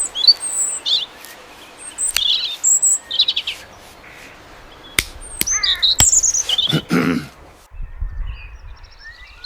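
Forest ambience of several birds chirping and twittering over a soft steady hiss, with a few sharp clicks and a brief lower-pitched sound about seven seconds in.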